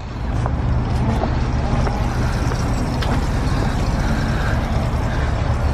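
An engine idling steadily, a low, even drone.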